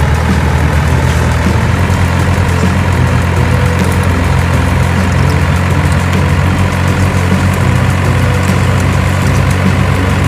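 Heavy diesel engine idling, a low, steady drone that holds even throughout.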